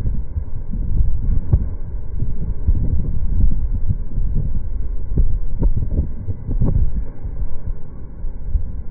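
Low, uneven rumble of wind buffeting the microphone of a moving train, with a few sharp knocks through the middle.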